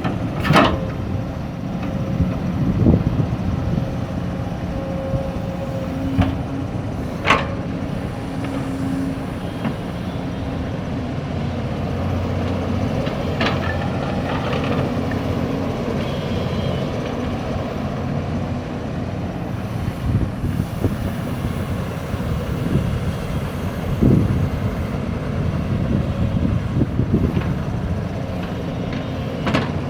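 Backhoe's diesel engine running steadily while it works, with a few sharp knocks: at about half a second, about 7 seconds and about 13 seconds in.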